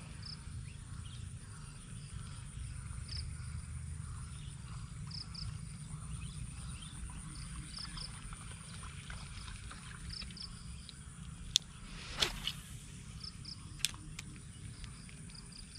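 Insects chirping in short, high pulses every second or so over a low, steady background rumble. A few sharp clicks and a brief swish come near the end.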